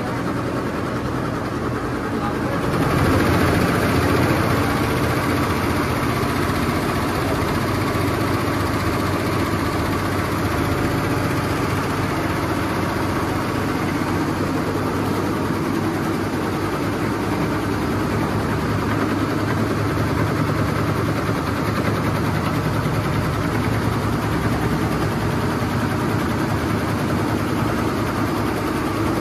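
Multi-head Tajima embroidery machine running steadily while stitching. It grows louder about three seconds in.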